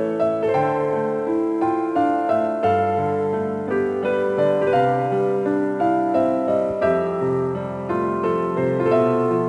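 Background piano music: a simple melody over chords, with notes struck about twice a second.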